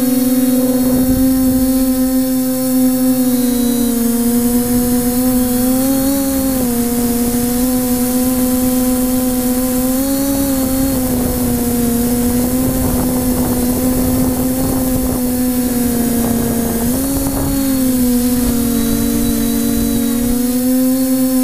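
Multirotor drone's electric motors and propellers humming at a steady pitch from on board, the pitch rising briefly a few times as it manoeuvres, with wind buffeting the microphone in places.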